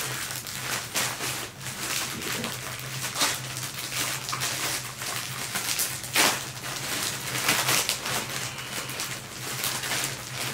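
Packaging being torn open and handled by hand: irregular rustling and crinkling with a few sharper tears, over a faint steady low hum.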